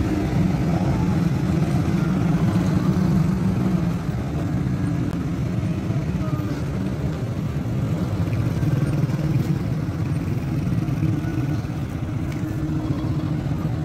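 Street traffic over a level crossing: motorcycles and a car passing, their engines making a steady, loud low noise.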